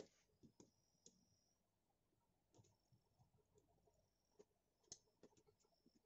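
Faint, irregular small clicks and taps of a partly disassembled plastic camera lens and a small screwdriver being handled.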